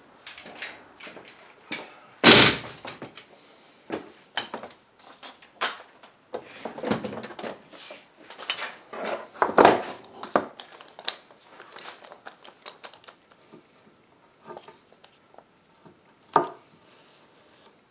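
Wooden handscrew clamps and bar clamps being handled: scattered wooden and metal knocks and clatter as they are picked up, carried and set down on a tabletop, with sharp knocks about two seconds in, near ten seconds and near sixteen seconds.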